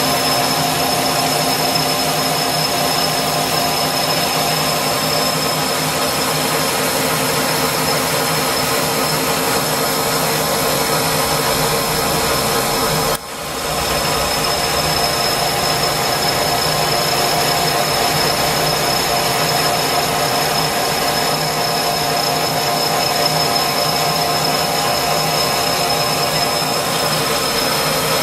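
Machine tool running steadily while machining bronze, a continuous mechanical whir with a high steady whine over it. The sound drops away for a moment about halfway through, then returns.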